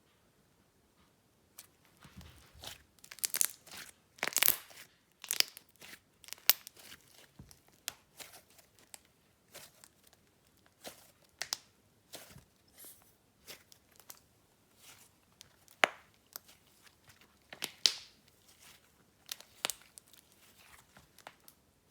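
Slime being squeezed and stretched by hand, making irregular sticky pops and crackles that begin after a short silence.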